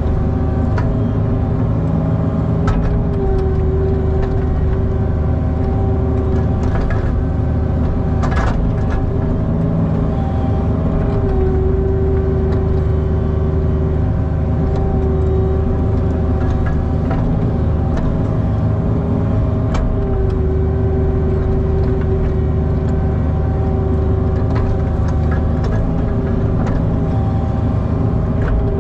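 Cat 304 mini excavator's diesel engine running steadily, with a high whine that swells and fades several times as the machine works, and a few light knocks.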